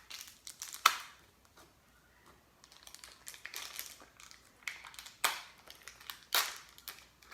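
Plastic packaging crinkling and crackling in the hands as it is worked open and the clay inside is pulled out, with a few sharper, louder crackles about a second in and near the end.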